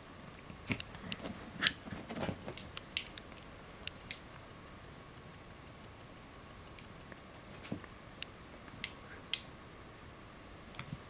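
West Highland White Terriers, an adult and puppies, scuffling at play on carpet: scattered soft clicks, taps and rustles, busiest in the first three seconds, then a few isolated clicks.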